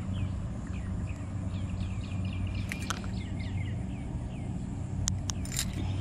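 Small bird chirping over and over in short, high, downward-sliding notes over a steady low hum, with a few sharp clicks near the end.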